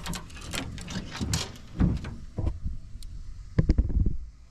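Handling noise from a camera being adjusted: a run of knocks, clicks and rubbing on the microphone, with a louder cluster of knocks near the end.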